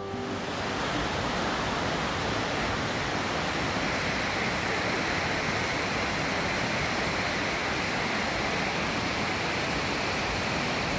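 Rushing water of the Aare river and a waterfall in its gorge: a steady, even rush of noise that turns brighter about four seconds in.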